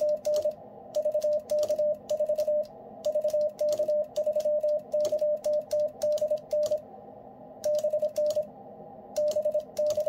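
Icom IC-705 transceiver's CW sidetone: a steady mid-pitched beep keyed on and off in dots and dashes as the radio transmits Morse code in full break-in, the characters coming in groups with short pauses between words.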